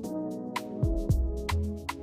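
Background music with a steady beat: kick drum and deep bass under sharp snare or hi-hat strokes and held chords.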